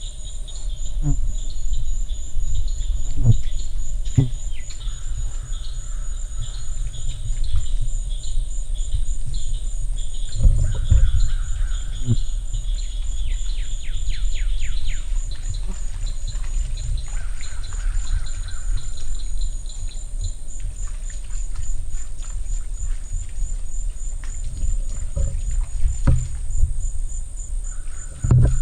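Night-time insect chorus: a steady, fast pulsing trill with other chirps coming and going, over a loud low rumble with a few dull knocks.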